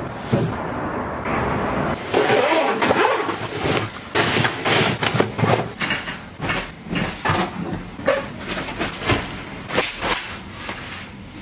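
Household items being handled and arranged: rustling and scraping for the first few seconds, then a string of separate clicks and taps as things are picked up and set down.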